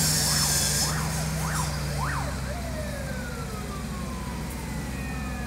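Emergency vehicle siren sounding a fast rising-and-falling yelp, then about two seconds in changing to a slow falling tone as it winds down, over a steady low engine hum.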